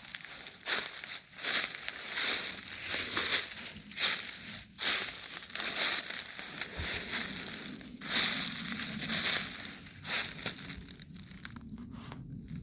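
Footsteps crunching through dry leaves and sticks on a forest floor at a steady walking pace, each step a short crackling crunch. The steps fade off about a second before the end.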